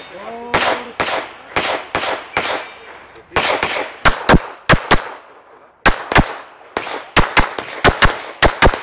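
Handgun shots fired in quick strings, each a sharp crack with a short echo. The shots come closer together and louder from about four seconds in, with pairs and triples a fraction of a second apart.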